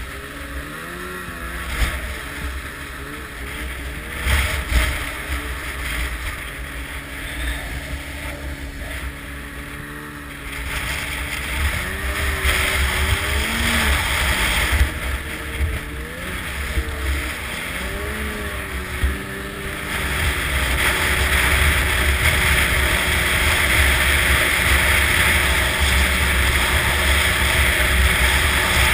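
Snowmobile engine running under way, its pitch rising and falling as the throttle changes. About two-thirds of the way in it settles into a louder, steadier run at speed, with a strong rushing noise over the engine.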